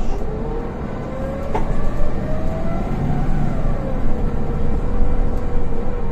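Golden Dragon XML6125CC city bus accelerating, heard from inside the cabin: a whine rising in pitch for about three seconds, then dropping and levelling off as the Voith automatic gearbox changes up, over steady engine and road noise. A single sharp click about a second and a half in.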